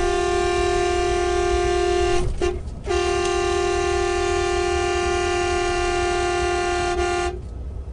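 A vehicle horn held in a long steady blast, breaking off briefly about two seconds in, then sounding again until it stops about seven seconds in.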